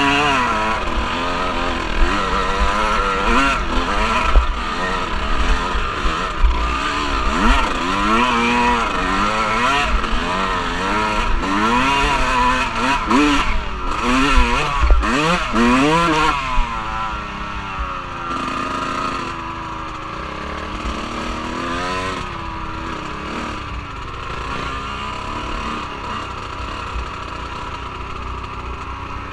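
Off-road vehicle engine revving up and down over and over while being ridden. About halfway through it settles into a steadier, quieter run.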